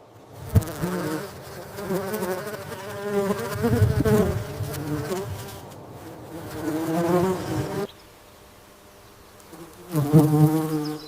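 A flying insect buzzing, its wingbeat hum wavering up and down in pitch, heard in three stretches with short gaps between them.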